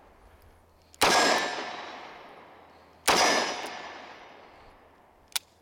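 Two shots from a Ruger LCR .357 Magnum snub-nose revolver, about two seconds apart, each a sharp crack that echoes away over about two seconds. A short faint click follows near the end.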